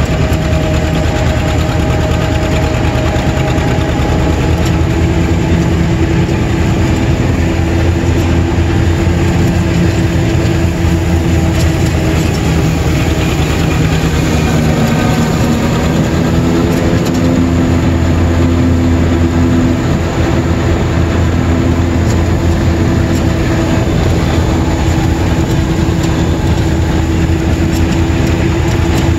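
A John Deere 630's two-cylinder engine running steadily under load while the tractor mows with a PTO-driven finish mower, a loud, continuous low engine note.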